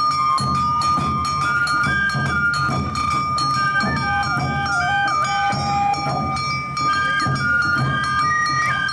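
Awa Odori festival music: shinobue bamboo flutes play a held note and a stepping melody over a steady beat of drums and sharp percussion strikes.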